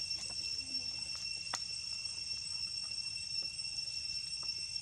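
Insects buzzing in a steady, high-pitched drone at several pitches, with one sharp click about a second and a half in.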